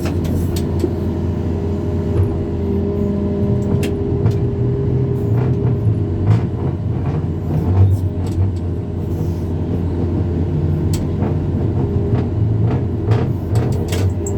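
Heavy machinery engine running steadily at a low drone, with scattered short clicks and taps over it.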